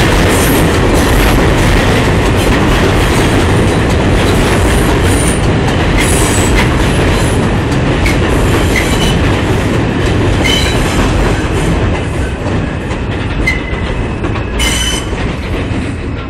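New York City subway train of stainless-steel cars running past the platform: a loud, steady rumble and clatter of wheels on rails. Short high-pitched wheel squeals come in the second half, and it grows quieter toward the end.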